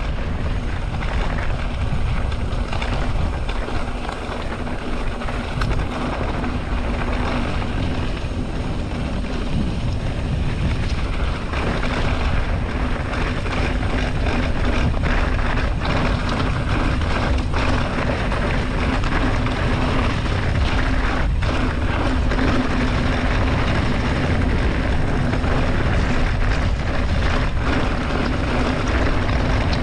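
Continuous wind rush on the camera microphone with a low rumble of tyres on a rough dirt track, as from riding a mountain bike.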